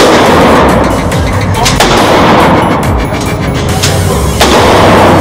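An FN SCAR 16S 5.56 mm rifle firing single shots, about four, a second or two apart, over loud background music.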